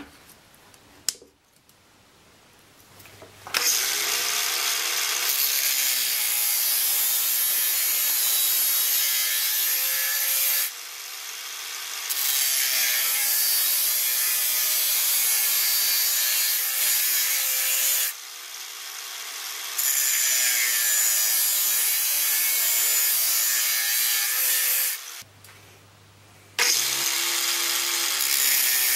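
Angle grinder with a thin cut-off disc cutting through copper pipe clamped in a vise, starting after a few quiet seconds. The cutting noise, over the grinder's motor whine, drops away briefly three times before going on.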